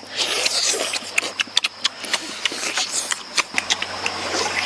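Close-up mouth sounds of eating: chewing and lip-smacking with many irregular wet clicks.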